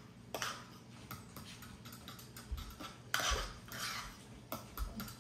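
Kitchen utensils and dishes handled on a counter: irregular light clinks and knocks of spoons and bowls, with a few brief scuffs and some low thumps.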